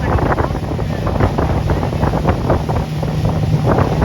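Strong wind buffeting the microphone in gusts, over the steady hum of a boat's motor running.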